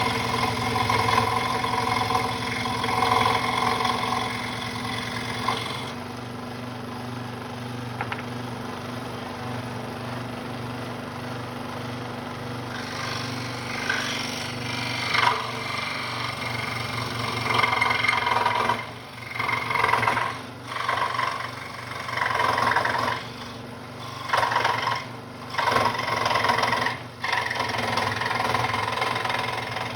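Central Machinery scroll saw running, its reciprocating blade cutting through a 1-inch pine board over a steady motor hum. In the second half the cutting sound repeatedly fades and returns every second or two.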